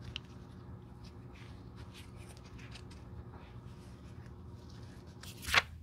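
A Louis Vuitton Monogram Eclipse canvas bifold wallet being flexed and bent in gloved hands, making faint rubbing and creaking. Near the end there is one short, loud rustling swish. A low steady hum runs underneath.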